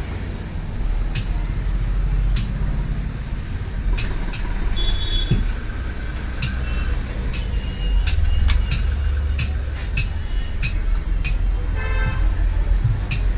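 Low steady rumble of road traffic with a vehicle horn tooting about twelve seconds in, over a scattered run of sharp clicks and taps.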